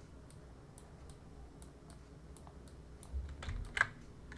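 Faint, scattered clicks of a computer keyboard and mouse as the software is operated, with one sharper click near the end.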